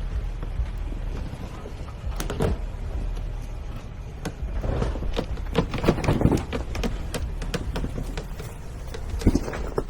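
Off-road SUV crawling slowly over a rocky trail: a low, steady engine rumble with scattered knocks and clunks from the truck working over rock, a cluster about two seconds in, a busier run through the middle and another knock near the end.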